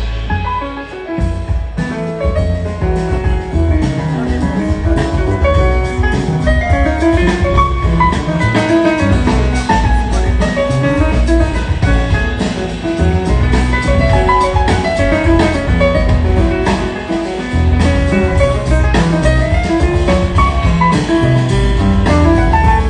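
Jazz piano trio music: a melodic line over bass and drum kit, playing continuously.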